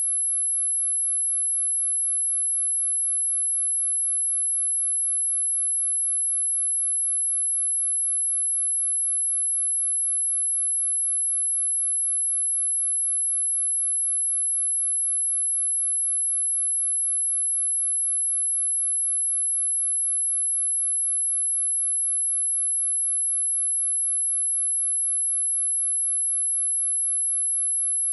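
A pure sine-wave test tone at 11024 Hz, one very high, steady, unwavering pitch with nothing else, played to test a speaker or shake water and dust out of it.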